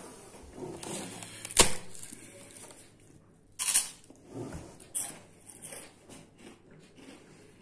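A sharp knock, then crunching bites into a crisp cracker, about three and a half seconds in and again about a second later, with small handling noises between.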